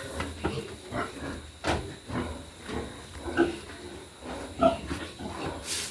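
Pigs grunting and giving short squeals, calls coming every half second or so, with a sharp knock about a second and a half in and another near the end.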